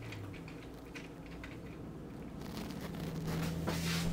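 Quiet room noise with a steady low hum and a few faint handling sounds, growing slightly louder about three seconds in.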